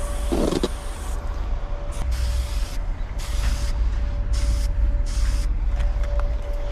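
Aerosol spray paint can hissing in short bursts, about six times, the first about a second long and the rest shorter, as lines are sprayed onto a concrete wall. A steady low rumble runs underneath.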